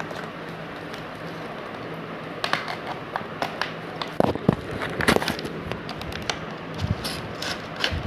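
Crackling and tapping of a cardboard retail box and its plastic and paper packing being opened and handled, starting about two and a half seconds in as a run of irregular sharp crackles over a steady background hiss.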